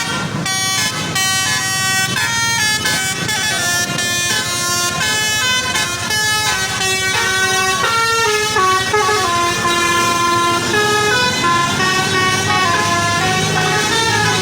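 A bus's telolet musical air horn playing a long tune, several notes at once stepping up and down a few times a second, over the low steady sound of the bus's engine.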